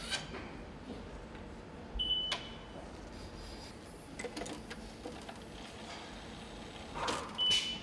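Metallic clicks of a hand torque wrench tightening bolts on an engine block, in scattered groups, with two short high beeps, one about two seconds in and one near the end.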